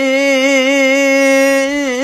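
A single voice singing an Urdu naat, holding one long, steady note with small wavering bends just after the start and near the end.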